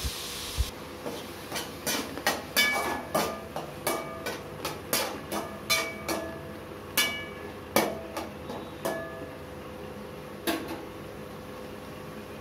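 Spatula clinking and scraping against the inside of a metal kadai while stirring chopped tomatoes and onions: a string of sharp, briefly ringing clinks, about one or two a second, that stops about nine seconds in, with one more near the end.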